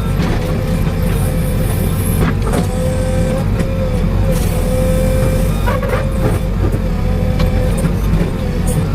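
A JCB excavator's diesel engine running steadily, with a steady whine above it and a few knocks about two and a half and six seconds in.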